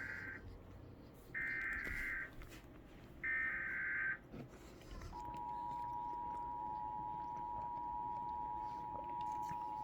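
Emergency Alert System signalling: three identical bursts of warbling digital SAME data tones, each just under a second long. About five seconds in, the steady two-tone EAS attention signal starts and holds, announcing an alert.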